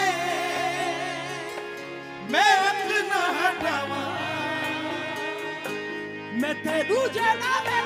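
Qawwali singing: a male lead voice sings long, ornamented, wavering phrases over steady held accompanying notes. A new, louder phrase swells in about two seconds in, and another rising phrase starts near the end.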